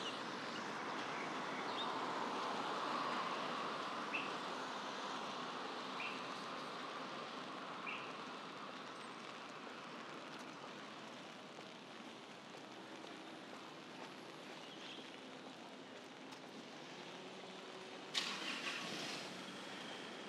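Traffic on a wet city road: a steady hiss of passing vehicles. A short high chirp comes about every two seconds in the first half, and a brief loud hiss about a second long comes near the end.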